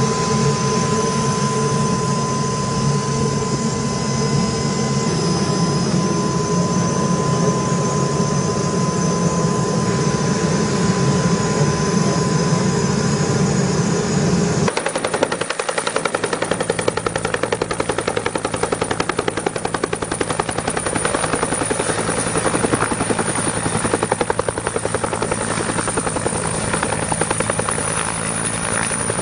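Helicopter engine and rotor noise, steady and loud. About halfway through it cuts abruptly to a different recording with a fast, even rotor beat and a high whine.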